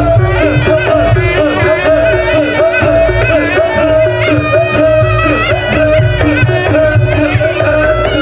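Reog Ponorogo gamelan music. A reedy slompret (shawm) holds a wavering melody over a fast, repeating figure of short tuned gong notes, with kendang drums beating underneath.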